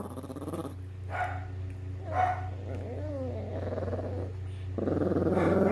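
A dog vocalizing in several short calls, one in the middle sliding up and down in pitch, then a louder, rougher stretch near the end, over a steady low hum.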